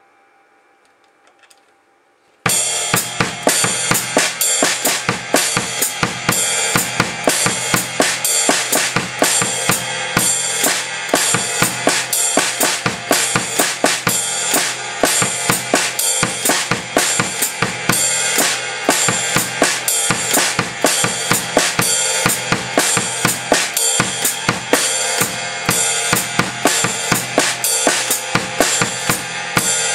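Drum kit starting a steady groove about two and a half seconds in: quarter notes on the ride cymbal, the hi-hat pedal closing on every off-beat eighth note with a heel-toe foot action, under a bass drum and snare pattern.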